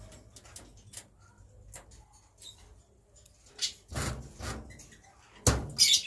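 Caged birds shifting about, with scattered light clicks and taps, then short bursts of wing flapping about four seconds in and a louder pair of flaps near the end.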